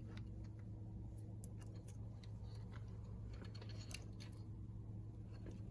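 Faint, irregular small plastic clicks and taps as an electric scooter's handlebar display housing is pried open and handled, over a steady low hum.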